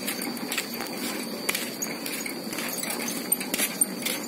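Metal wheelbarrow being pushed over a rough path: a steady rolling rumble from its wheel, with irregular clicks and knocks from the tray and frame.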